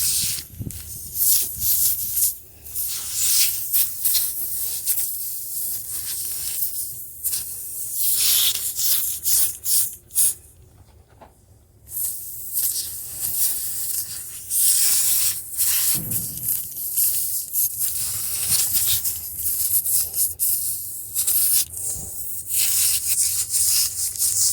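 Air hissing in irregular spurts from a punctured steel-belted truck tire as a reamer tool is twisted in and out of the hole, with scraping. The hiss drops away for about two seconds near the middle.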